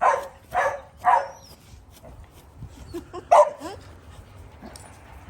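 Small dogs barking: three quick barks at the start, then a single bark about three and a half seconds in, with a few fainter yaps between.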